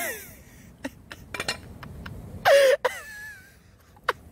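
A person's short, loud vocal sound about two and a half seconds in, among scattered light clicks and taps.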